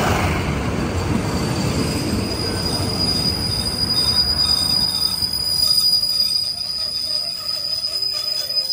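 A State Railway of Thailand passenger train slowing as it rolls in along the platform. Its low rolling rumble fades gradually while a steady high-pitched wheel and brake squeal runs on from about a second and a half in.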